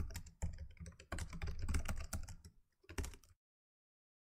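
Rapid, irregular keyboard typing clicks, a sound effect for on-screen text typing itself out. They stop suddenly a little over three seconds in, followed by dead silence.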